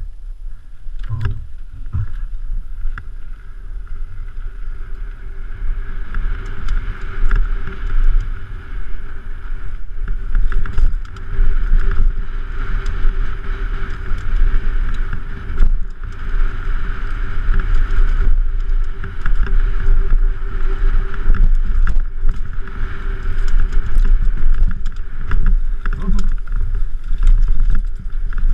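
Wind buffeting a helmet-mounted camera on a downhill mountain bike descending a dirt trail, with the rumble of the tyres and frequent short knocks and rattles from the bike over rough ground. It grows louder over the first several seconds as speed builds.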